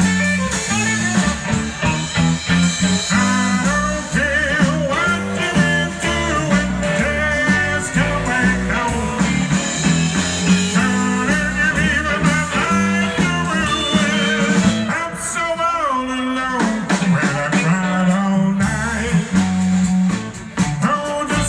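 Live rock'n'roll band playing a blues-tinged instrumental break: lead electric guitar soloing with bent notes over bass and drums, with a falling slide about two-thirds of the way through.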